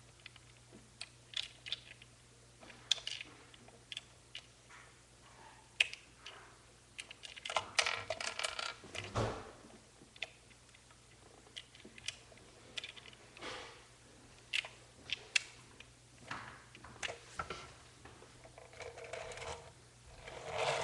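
Scattered small clicks, taps and rustles of small hard objects being handled, irregular and unhurried, with a busier stretch of rattling about eight seconds in, over a faint steady low hum.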